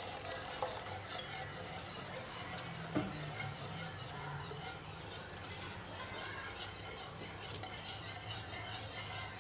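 Wire whisk stirring milk in a steel saucepan, with small clinks of the wires against the pan, over a faint steady low hum. Cornflour slurry is being whisked into the milk to thicken it.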